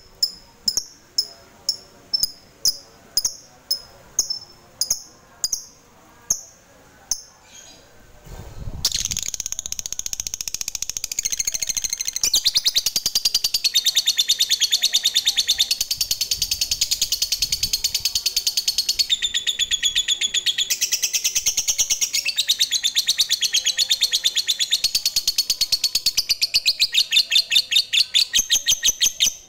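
Lovebird calling. It gives single sharp, high chirps about twice a second, then about eight seconds in breaks into a long, rapid chattering trill (the 'ngekek panjang' prized by lovebird keepers). The trill runs unbroken for about twenty seconds before cutting off suddenly.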